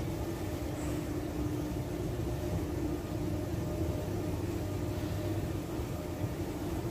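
Steady ambient hum and even background noise of an underground pedestrian passage, with a constant low drone.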